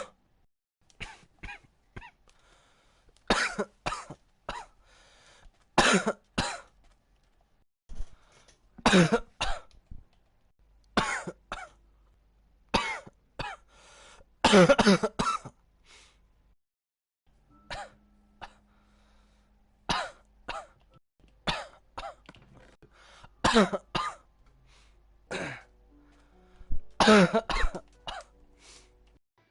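A person in a coughing fit: about a dozen short bouts of loud coughing, one every two to three seconds, with quieter gaps between.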